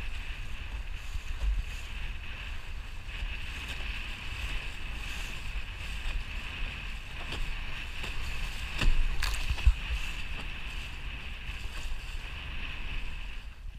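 Fireball dinghy sailing through chop: water rushing along the hull under wind rumble on the microphone, with a steady hiss and a few sharp knocks about two-thirds of the way in.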